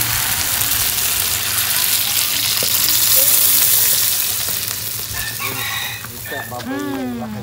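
Water poured from a jug into a hot wok of frying chicken and young terung Dayak, sizzling with a hiss that swells around the middle and dies down as the pan fills with liquid.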